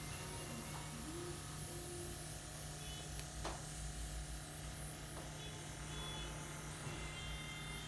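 Airbrush makeup compressor running with a steady buzzing hum, the airbrush hissing as it sprays makeup onto the face. One sharp click about three and a half seconds in.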